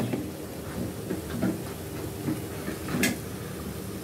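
Soft knocks and clicks of kitchen handling at the stove, with one sharp click about three seconds in, over a faint steady hum.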